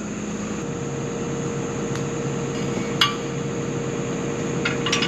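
Steady hum of an idling track hoe (excavator), with sharp metallic clinks of tools on the pipe adapter's bolts, once about three seconds in and a few times near the end.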